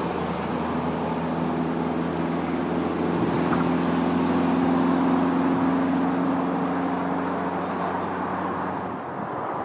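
CrossCountry Class 220/221 Voyager diesel multiple unit running along the platform, its underfloor diesel engines giving a steady drone. The drone swells as the train draws near and fades near the end.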